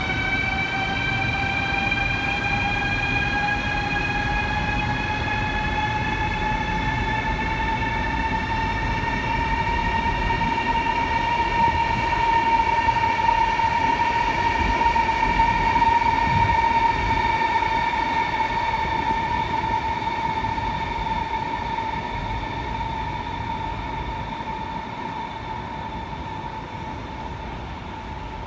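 Electric high-speed train pulling away: the traction motors whine, rising in pitch as it picks up speed, then holding steady over a low rumble from the rails. The sound fades toward the end.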